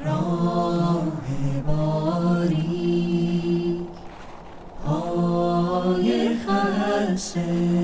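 Persian classical singing (avaz): a voice holding long notes with quick ornamented turns, in two phrases with a short break about four seconds in.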